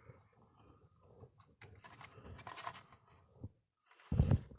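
Faint rustling and clicking as hands work wires and connectors inside an electric fence energizer's plastic case, then a brief loud low thump near the end.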